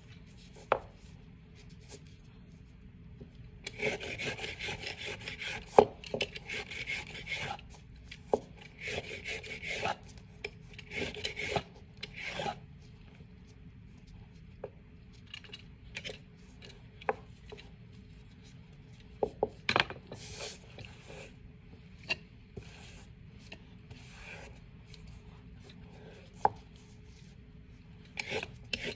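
Vegetable peeler scraping down a raw carrot in repeated strokes: dense runs of rasping strokes early on, then slower separate strokes. A few sharp knocks against the plastic cutting board stand out, the loudest about 6 seconds in.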